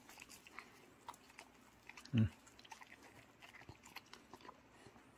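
Dogs chewing and licking steamed sweet potato from a hand: small soft wet clicks and smacks. A short low thump about two seconds in.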